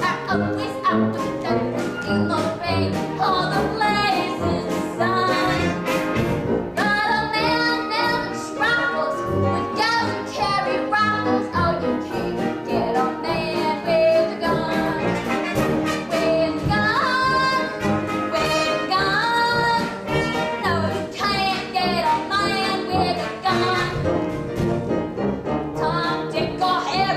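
Stage-musical orchestral accompaniment led by brass, playing without a break.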